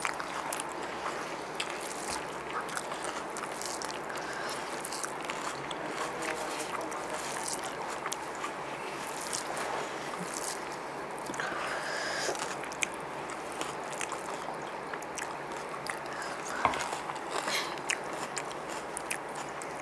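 Two people eating chicken biryani with their hands off banana leaves: chewing, with scattered small clicks and smacks over a steady low hiss.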